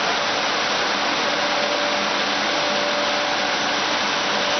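Woodworking CNC machine and its dust-extraction hoses running: a steady rushing hiss with a faint steady whine through it.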